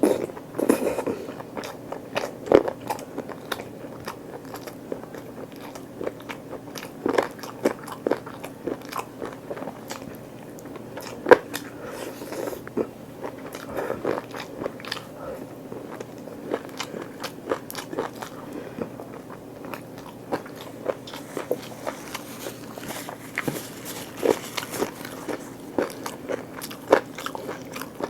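A person eating on a close microphone: biting and chewing with crunchy bites and wet mouth clicks, in an irregular run of short sharp sounds.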